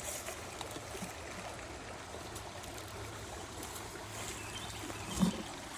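Creek water running and trickling steadily, with one short low thump about five seconds in.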